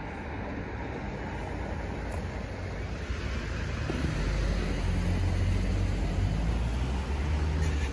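Road traffic rumble from a street, with a car growing louder about halfway through.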